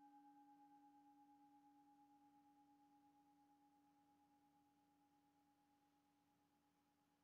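A struck singing bowl ringing out, its low tone and a higher tone above it fading slowly and faintly, with a gentle wavering as they die away.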